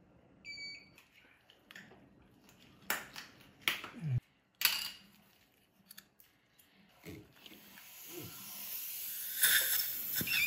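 A short electronic beep about half a second in, then scattered clicks and knocks of dental instruments. From about seven seconds the hiss of a dental saliva ejector sucking in the mouth rises steadily.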